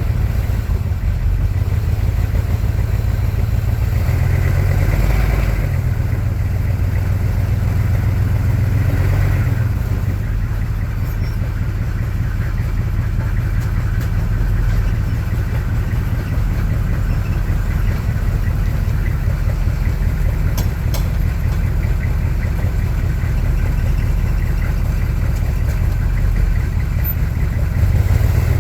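1982 Chevrolet K20 Suburban's 6.2-litre V8 diesel running steadily, the engine note rising a little around 4 to 6 seconds in and again near 9 seconds. A few sharp knocks come through around 20 seconds in, in a truck whose owner traces a knocking noise to the rear end.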